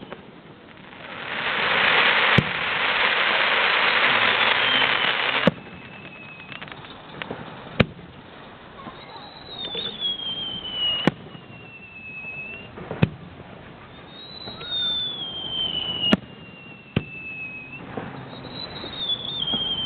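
Fireworks display: sharp shell bursts every couple of seconds, several whistling shells gliding down in pitch, and a loud hissing crackle from about a second in that lasts about four seconds and cuts off suddenly.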